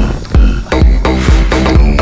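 Electronic dance music with a steady, driving beat.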